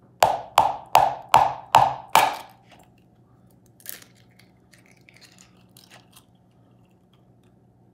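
A raw egg rapped six times in quick succession on the rim of a plastic bowl to crack its shell, each rap a short ringing knock. A faint click follows about a second and a half later as the shell is pulled open. After that there is only a low steady hum.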